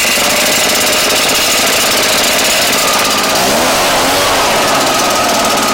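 Husqvarna backpack leaf blower's two-stroke engine running loud and steady with the fan blowing air, on a test of its newly fitted throttle lever and cable assembly.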